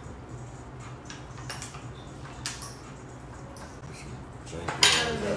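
Faint scattered ticks and taps of hands handling food and condiment containers at a table, over a low steady hum. A sharp, louder crackle comes near the end.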